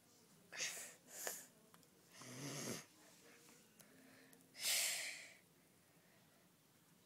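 A person's breathy vocal noises: four short hissing breaths, the third with a low voiced edge to it, the last and loudest about five seconds in.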